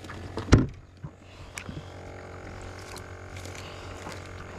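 A single loud knock on the boat about half a second in, then a steady low hum with scattered light clicks and taps.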